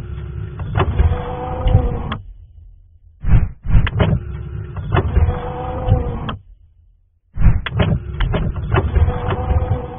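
Intro sound effect: a mechanical whirring with sharp clicks, played three times in bursts of about two to three seconds, each ending abruptly.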